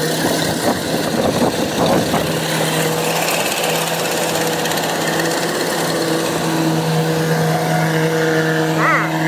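Kubota DC-105X rice combine harvester running close by: a steady engine hum under a constant mechanical rush from its cutting and threshing machinery.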